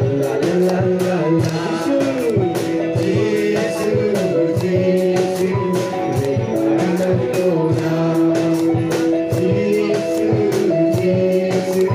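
Garo gospel song: a voice singing over instrumental backing with a steady beat.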